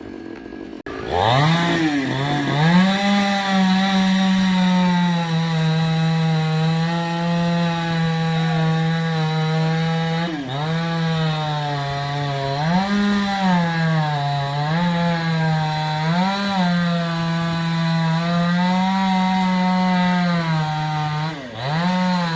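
Two-stroke chainsaw revving up about a second in and running at high speed as it cuts wood. Its engine pitch sags and recovers several times as the chain bites into the cut and frees.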